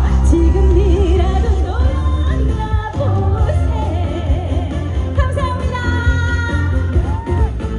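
Live trot song: a woman singing with wide vibrato over a loud backing track with a heavy, steady bass.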